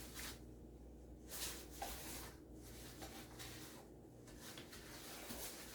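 Butter, sugar and eggs being stirred by hand in a mixing bowl: repeated scraping strokes of the utensil against the bowl, about one a second.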